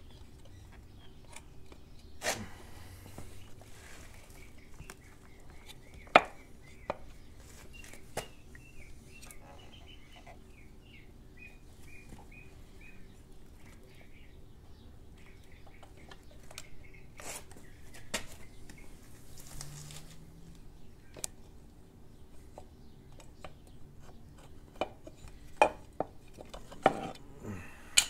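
Scattered clicks and knocks of a Royal Enfield Hunter 350's valve cover being worked by hand against its cylinder head, as the gasket is fitted. The sharpest clack comes about six seconds in, and several knocks come close together near the end.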